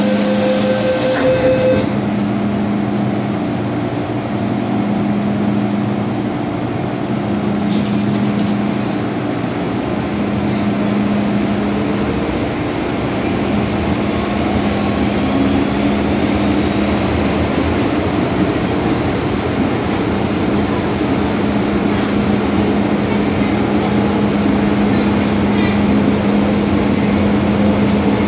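MTR M-Train (Metro-Cammell electric multiple unit) running, heard from inside the car: a steady rumble of wheels and running gear. Under it, a low hum swells and fades every couple of seconds at first, then holds steady.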